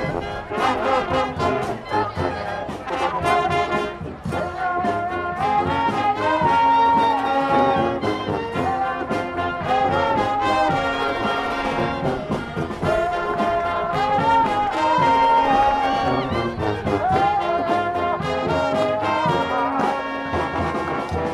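Street marching band playing live: brass horns carrying a melody over a steady drum beat.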